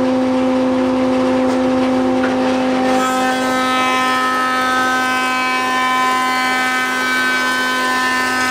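Thickness planer running steadily with a low hum. About three seconds in, a board enters the cutterhead and a higher whine and hiss join in as the board is planed flat to even thickness.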